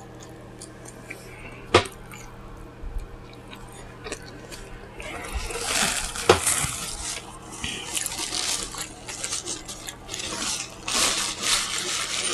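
A person eating pizza close to the microphone: wet chewing and lip-smacking mouth sounds, sparse at first with a sharp click about two seconds in, then busier from about halfway.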